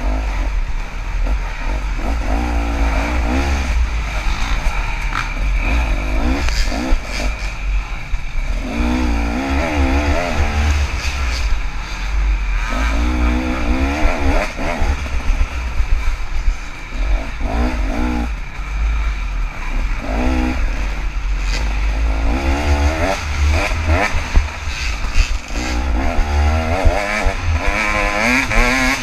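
KTM 300 two-stroke dirt bike engine revving in repeated bursts of throttle, its pitch wavering up and down, over a steady low rumble.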